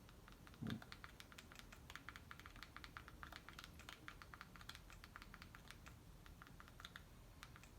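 Faint, quick clicking of buttons or keys, several a second, as text is typed into a browser search bar.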